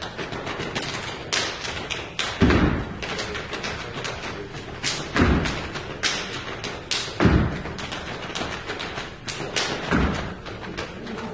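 Live percussion playing: deep drum-like thumps about every two and a half seconds, over a run of sharp taps and stick-like strikes.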